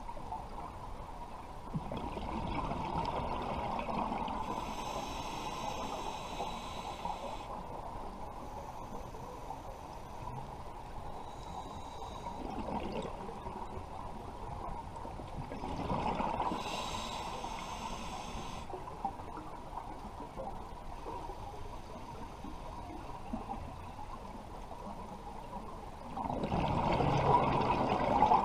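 Scuba regulator exhaust bubbles heard underwater, gurgling out in three long exhalations about ten seconds apart over a steady hiss. The last exhalation is the loudest.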